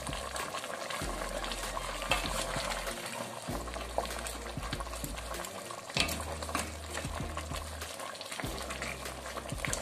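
Meat stock with dried fish bubbling at the boil in a steel pot while being stirred with a spoon, with a few sharp knocks of the spoon against the pot, the loudest about six seconds in.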